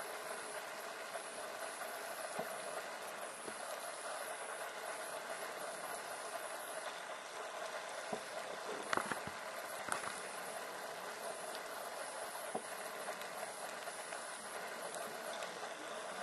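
Underwater ambient noise heard through a camera housing: a steady hiss with scattered sharp clicks, a few louder ones bunched about nine to ten seconds in.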